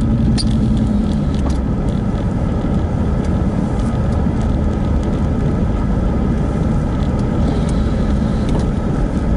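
A car or truck driving slowly, heard from inside the cabin: steady low engine and road rumble, with a hum that fades about a second in as it eases off.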